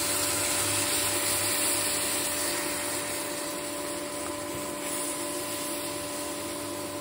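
Induction cooktop's cooling fan whirring steadily, with a constant electrical hum, as buttermilk is poured into the hot pan of besan and onion; the hiss eases slightly over the seconds.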